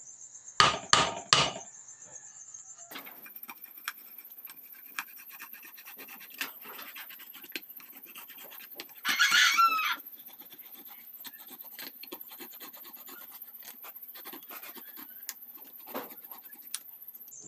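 A large knife opening a tin of corned beef: three sharp stabs into the metal lid near the start, then a long run of scratching and scraping as the blade is worked around the rim. There is one louder, squealing scrape about halfway through.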